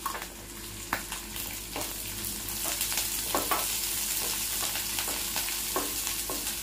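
Onions, chillies, ginger and garlic sizzling as they are stir-fried in a nonstick kadai, with a wooden spatula scraping and knocking against the pan now and then. The sizzle gets a little louder after about two seconds, as the stirring picks up.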